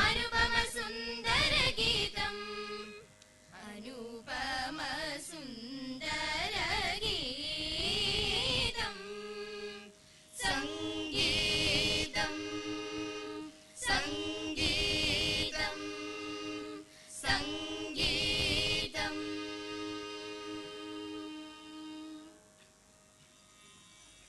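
Mixed group of teenage students singing a patriotic song together, in phrases with short breaks. The song closes on a long held note that fades away near the end.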